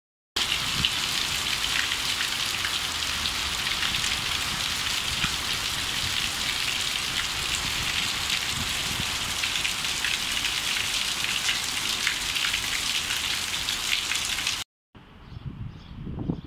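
Heavy rain pouring down on a rooftop terrace, a loud steady hiss full of individual drops striking the floor and parapet. It cuts off suddenly near the end, leaving a much quieter outdoor background.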